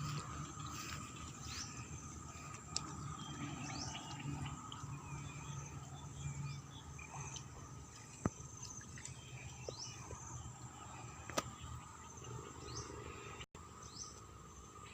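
Outdoor ambience of an insect chorus with a steady high drone, over which a bird repeats short falling chirps every second or two. A few sharp clicks are scattered through it.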